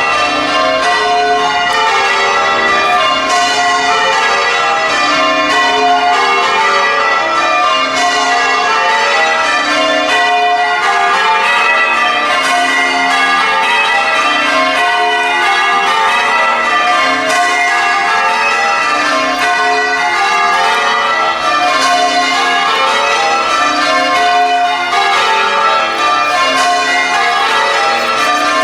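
Church bells rung full circle in the English change-ringing style, a continuous, even stream of strikes from the whole ring. The changes being rung are thought to be call changes.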